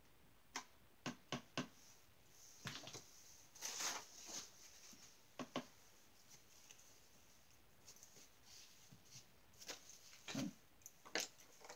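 Faint, scattered clicks and taps with a few short rustles: a paintbrush being washed out in odorless thinner and wiped on a paper towel.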